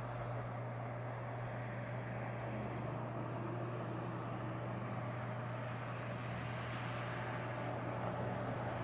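Steady highway traffic noise, mostly tyre and engine noise from vehicles on the road, with a constant low drone under it. It grows slightly louder near the end.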